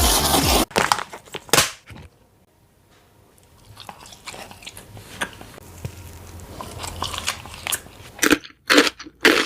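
Background music cuts off within the first second. Then comes close-up chewing and biting of a spicy chicken wing, with a short quiet pause, and loud, rapid crunches near the end.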